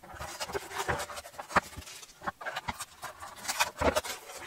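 Paper masking tape being peeled off a plastic model boat hull and crumpled in the hand: irregular crackling rips and rustles with a few sharper snaps.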